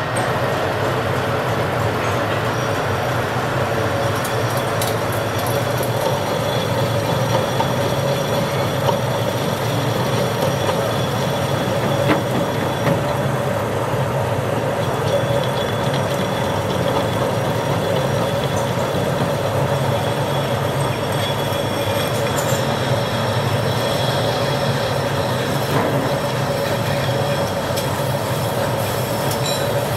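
Belt-driven metal lathe running steadily while a tool bit faces the steel flange end of a truck axle shaft, cutting off curled chips. A steady low hum carries a steady mid-pitched tone, with a few faint clicks.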